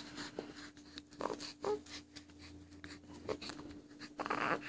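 Pen scratching on a small paper notepad as a child writes, with a faint steady hum underneath.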